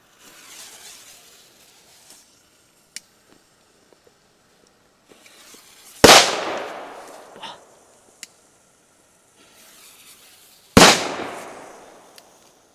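Fire Event Red Corsair firecrackers going off: two sharp, very loud bangs a little under five seconds apart, each trailing off in a long echo. A faint hiss comes before them.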